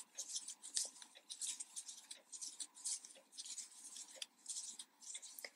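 Faint, quick scratching and rustling of cotton yarn being hooked and drawn through stitches by a metal crochet hook, in short irregular strokes several times a second.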